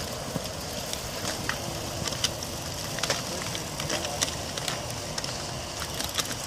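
Cyclocross riders' shoes, tyres and bikes on dry, dusty dirt: scattered sharp clicks and crackles over a steady rushing background.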